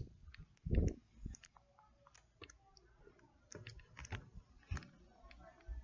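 Faint, scattered clicks and light knocks of handling noise from a handheld phone camera carried while walking, with a low thump a little under a second in.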